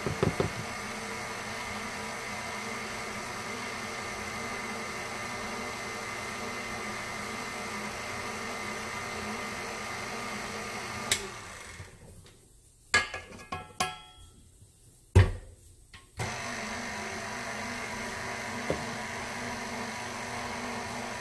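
KitchenAid Artisan stand mixer motor running steadily as it works pizza dough. About eleven seconds in it clicks off, and a few knocks and one loud thud follow as a cup of flour goes into the steel bowl. The motor starts again about five seconds later.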